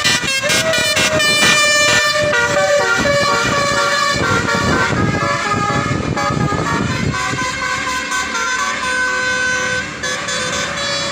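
Indonesian bus 'telolet' horn, a multi-tone musical air horn, playing a loud run of shifting notes that rise, hold and step from one pitch to another, with a brief dip near the end.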